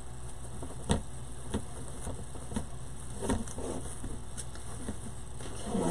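Quiet hand-handling of craft materials, deco mesh and ribbon, over a steady low hum: a sharp knock about a second in, then a few faint taps.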